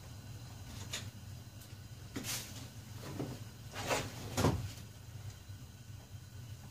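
A handful of short knocks and scrapes from hands and a small tool working at a golf cart's fiberglass front body panel, the loudest two close together about four seconds in, over a steady low hum.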